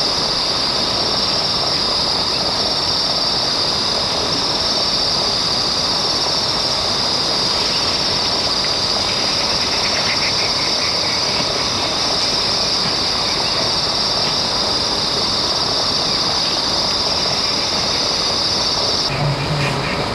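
A steady, high-pitched shrill of an insect chorus over a dense outdoor noise background; it changes abruptly near the end.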